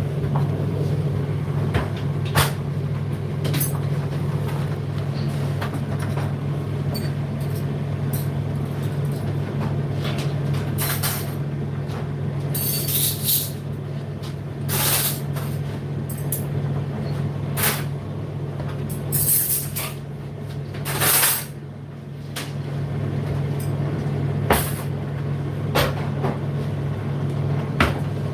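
Indesit IDC8T3 condenser tumble dryer running, a steady low hum from the drum and fan, with irregular clicks and knocks and a few short hissy bursts.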